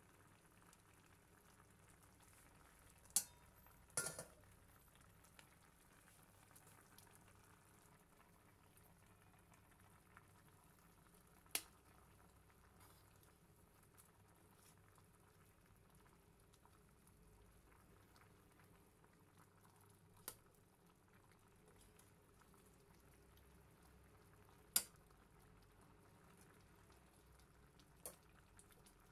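Pot of laksa curry broth boiling, a faint steady bubbling, broken by about six sharp clicks spread through it.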